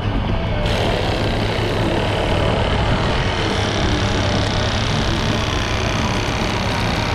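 Heavy-equipment diesel engine running steadily, with a constant low hum; the higher noise picks up slightly under a second in.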